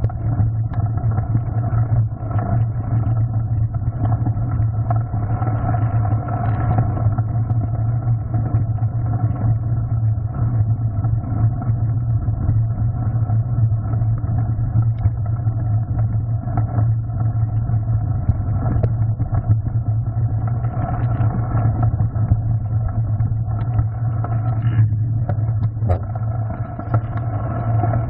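Mountain bike riding over a gravel and rock trail, picked up by a handlebar-mounted camera as a steady, muffled rumble of tyre noise and bike vibration, with a few short knocks near the end.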